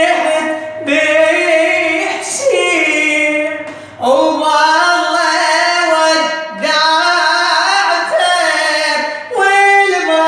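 A solo voice sings unaccompanied, with long, high, ornamented phrases broken by short breaths, in the style of an Iraqi Shia eulogy (latmiya) reciter.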